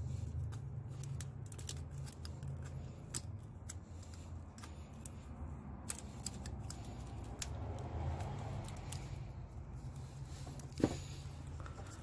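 Light metallic clicks and ticks of a valve-adjusting tool and feeler gauge working a rocker-arm adjusting screw and locknut on a Honda 3.2L V6, with one sharper knock near the end. A steady low hum runs underneath.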